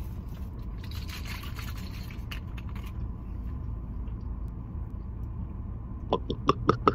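A person gulping juice from a plastic bottle: a quick run of repeated swallows near the end, after a soft rustle and a few clicks about a second or two in, over the steady low rumble of the car.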